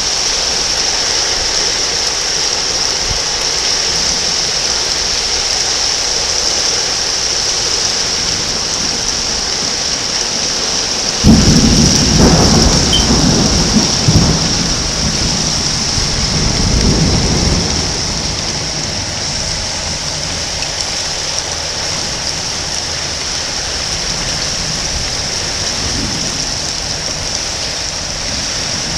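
Steady rain falling with a constant hiss. About eleven seconds in, a sudden thunderclap breaks and rolls on in rumbles for several seconds, and a fainter rumble of thunder comes near the end.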